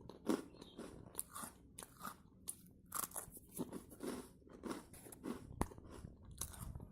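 Dry baked clay being bitten and chewed: a run of crisp crunches, roughly one or two a second, with one sharp crack about five and a half seconds in.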